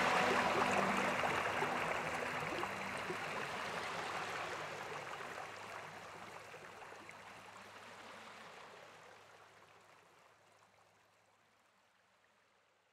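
A music track fading out: its last held notes die away about two seconds in, leaving a rushing, water-like hiss that fades steadily to near silence.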